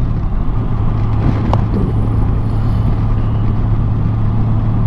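Honda Gold Wing GL1800's flat-six engine droning at a steady cruise in fifth gear, under wind and road rush. The note settles slightly lower right at the start, and there is a single sharp click about a second and a half in.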